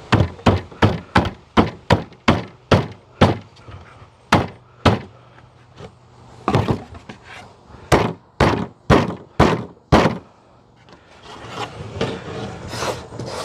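Wooden beehive box parts being banged together to seat their finger joints: a run of about ten quick, sharp wood knocks, a few scattered ones, then another run of about six. The knocks come loud and heavy because the parts are banged on the same table the camera stands on.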